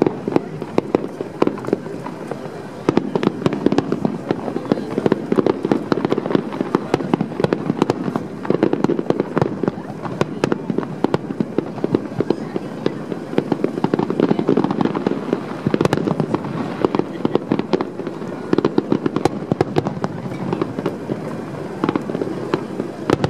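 Fireworks going off: many sharp bangs and cracks in quick succession from aerial shells bursting.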